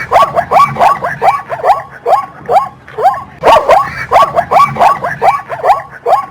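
Zebra calling: a rapid series of high, yelping barks, about three a second, with a short lull midway.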